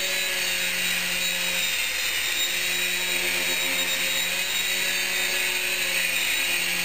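Small coaxial 3-channel RC helicopter in flight: its tiny electric motors and rotor blades give a steady whine, the pitch shifting slightly as it is steered.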